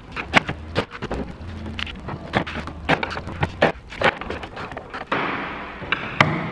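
Repeated sharp knocks and clatter of plywood parts and tools being handled and fitted together. About five seconds in, a rushing noise starts suddenly.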